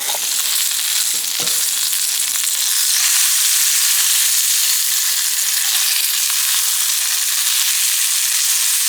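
Sausage frying in a pan, a steady sizzle of hot grease, with two soft knocks about a second in.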